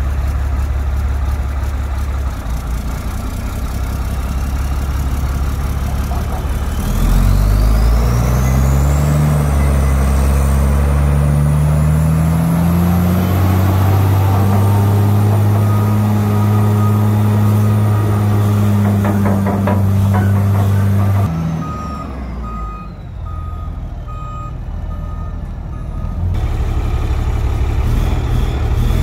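Atlas Copco MT2010 mine truck's diesel engine running, revving up about a quarter of the way in with a high whine rising alongside, holding high revs, then dropping back. About three-quarters of the way in a backup alarm gives six short beeps, and the engine picks up again near the end.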